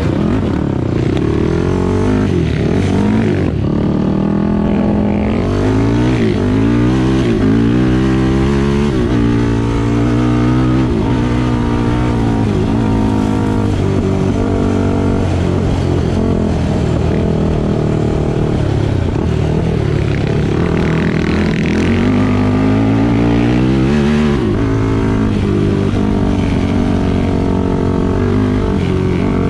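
An off-road vehicle's engine being ridden, its pitch climbing and dropping again and again as the throttle is opened and closed.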